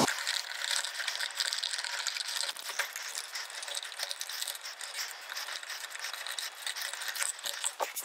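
Screwdriver loosening the terminal screws on an old three-way light switch: a continuous run of fine clicks, with a sharper click near the end.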